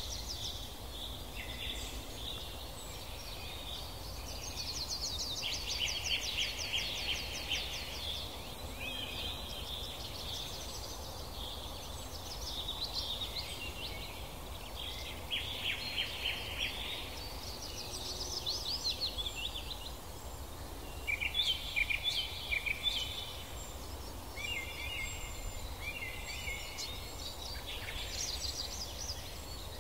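Songbirds singing in woodland: a run of high phrases one after another, rapid trills and repeated chirps, over a low steady rumble.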